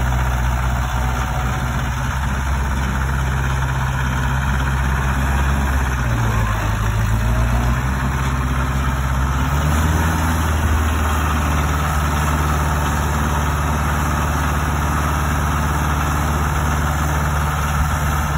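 Mitsubishi D3250D compact tractor's diesel engine running steadily as the tractor drives. Its note dips briefly about six seconds in, then rises to a slightly higher steady pitch about ten seconds in.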